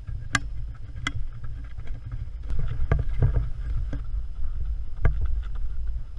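Running shoes striking a dirt and rock trail in sharp, irregular footfalls, over a steady low rumble of wind and movement on the microphone.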